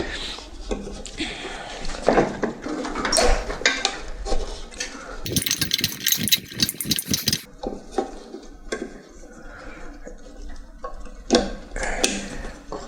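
A tool clicking and scraping against a band saw wheel as a new urethane tire is pressed evenly into the wheel's groove. About five seconds in comes a rubbing scrape lasting a couple of seconds.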